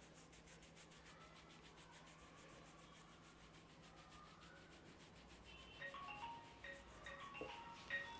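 Faint, fast rubbing of hands over hair and scalp during a head massage, about nine strokes a second. About five and a half seconds in, a soft marimba-like melody of single notes starts.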